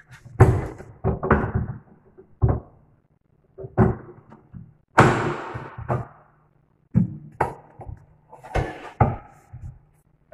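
Repeated knocks and metallic clatter of a chrome wire corner pull-out shelf being handled and fitted onto its pins and frame inside a kitchen base cabinet, with a longer, noisier clatter about five seconds in.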